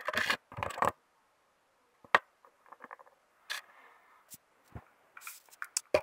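Small plastic toys and cups being handled and set down on a wooden tray: scattered light clicks and knocks with faint scraping, a cluster of small clicks near the end.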